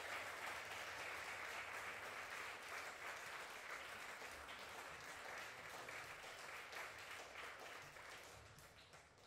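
Audience applauding: dense, steady clapping that thins out and fades in the last couple of seconds.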